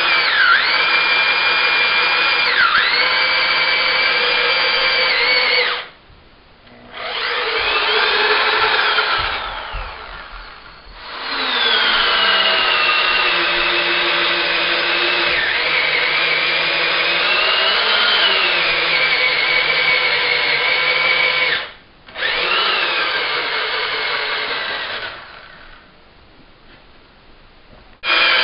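Electric drill in a homemade boring guide driving a large auger bit into a wooden timber beam: the motor whines, its pitch dipping as the bit bogs under load. It runs in four stretches, stopped and restarted between them, winding down after each, and is off for the last few seconds.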